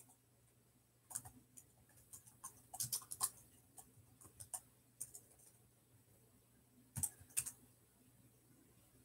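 Faint, irregular light clicks and taps: a flurry from about a second in lasting a few seconds, then two sharper clicks about seven seconds in.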